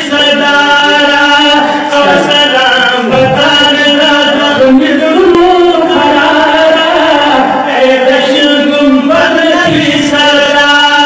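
Male voices chanting a Pashto naat, a devotional poem sung unaccompanied, in long drawn-out notes through microphones.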